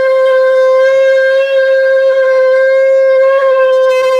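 Water buffalo horn blown as a lip-buzzed horn, holding one long, steady, loud note.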